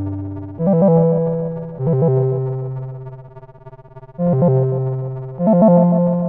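Phone alarm tone played on a synthesized electric piano: a short tune of chords, each struck and left to ring and fade, about one every second and a bit, over a deep bass note.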